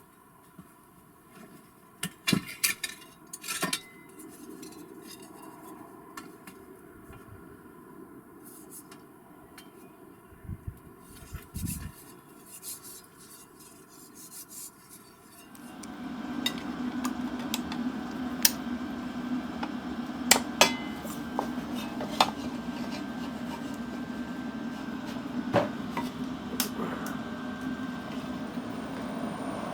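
Metal clinks and knocks of tools and parts being handled. About halfway through, a milling machine starts and runs steadily with a low hum and sharp clicks over it; it is starting to make a noise again.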